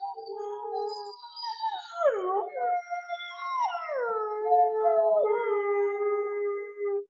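Several wolves howling together: long, overlapping howls held on steady notes, some sliding down in pitch.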